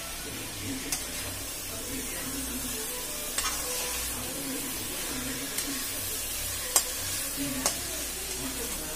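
Spice-coated quail pieces sizzling in oil in a metal kadai while a steel spatula stirs them. The spatula knocks sharply against the pan about five times, loudest about two-thirds of the way through.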